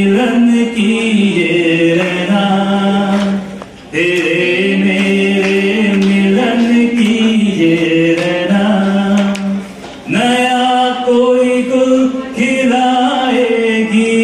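A man singing a slow chant-like melody into a microphone, amplified over the hall's speakers, holding long notes that slide between pitches, with short pauses for breath about 4 and 10 seconds in.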